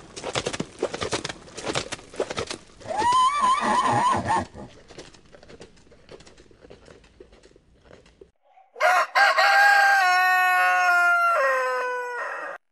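Horses galloping, their hoofbeats thudding, then a horse whinnies about three seconds in. After a quieter stretch, a rooster crows loudly: one long crow of about four seconds that ends just before the close.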